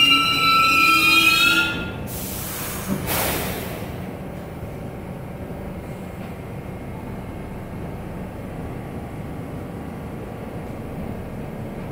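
New York City Subway R62A train squealing as it brakes to a stop, the squeal ending about two seconds in. Two sharp hisses of released air follow, a second apart, and then the standing train gives a steady low hum.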